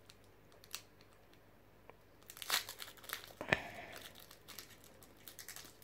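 Foil wrapper of a Pokémon trading card booster pack crinkling and tearing as it is pulled open by hand. Quiet at first with a single click, then a run of crinkles starting about two and a half seconds in, the sharpest a second later.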